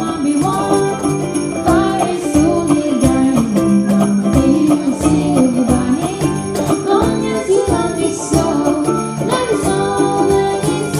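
Small live acoustic band: a girl singing over strummed ukulele, with hand-played cajon beats and shaken jingle bells.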